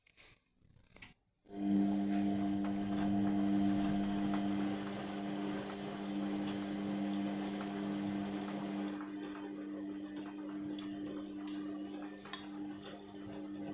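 Indesit washing machine running mid-wash: after a couple of faint knocks, a steady electrical motor hum starts about a second and a half in and becomes slightly quieter later on.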